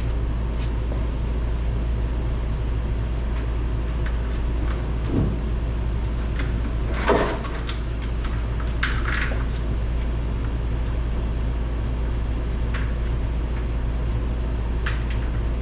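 A diesel truck engine idling steadily, with scattered clicks and knocks of handling; the loudest knock comes about seven seconds in.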